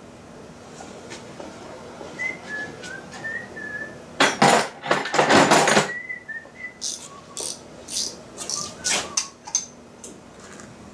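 A man whistling a tune in short notes, with a loud harsh rasp lasting about a second and a half in the middle. A string of sharp metallic clicks and knocks from hand tools on bolts follows.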